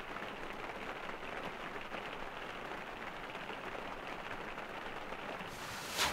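Rain falling hard on a truck camper's roof, heard from inside as a steady patter, with a short sharp sound at the very end.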